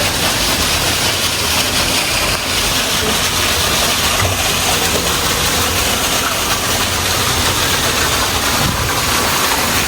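Steady, loud rushing of flowing water, an even noise with no breaks.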